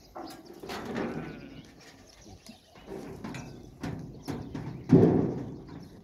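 A herd of goats moving about close together in a pen: shuffling hooves and scattered clicks and knocks, with a louder burst about five seconds in.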